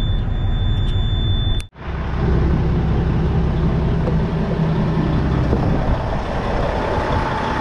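Tractor-unit truck's diesel engine idling, heard from the cab. About two seconds in, the sound cuts out for an instant, and then a steady hiss of heavy rain joins the idling engine.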